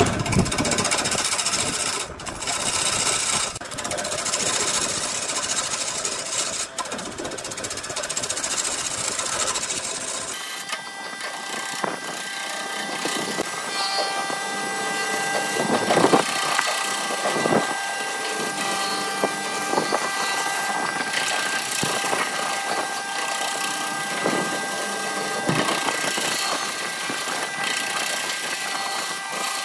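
Burt wood lathe running with a turning tool cutting the spinning blank: a steady rough scraping noise from the cut. About ten seconds in, the low rumble drops away and a steady high motor whine comes to the fore, with a few brief louder swells of the cut.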